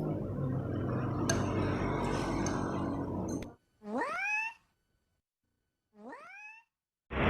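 A steady low background din cuts off suddenly about three and a half seconds in, then a cat meows twice in dead silence, each meow rising in pitch and the second fainter.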